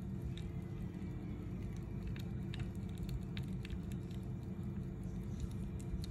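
Fingers handling an antique gold-filled pocket watch and turning its crown to set the hands, giving a few faint, irregular clicks and rubbing over a steady low hum.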